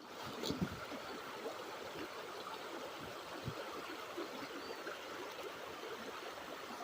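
Stream water flowing and trickling steadily, with a couple of soft knocks about half a second in.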